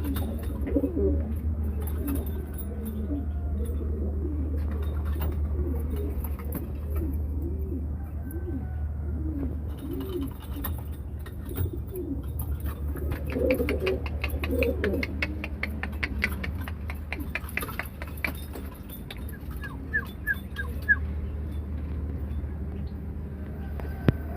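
Domestic pigeons cooing again and again in low, rolling calls over a steady low hum, with a quick run of clicks about halfway through.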